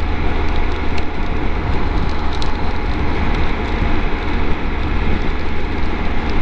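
Triumph Tiger 1200 three-cylinder engine running at a steady cruise on a wet road, heard from a helmet camera. Its low drone sits under a steady rush of wind and tyre hiss on the wet tarmac, with a few faint clicks.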